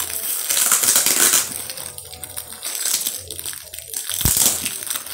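Plastic stretch film crinkling and tearing as a knife cuts open a wrapped cardboard package, in uneven bursts, with a dull bump about four seconds in.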